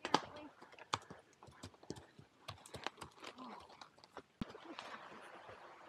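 Horse's hooves knocking on the trail at a walk, an irregular run of clip-clops, with a faint steady hiss coming in about two-thirds of the way through.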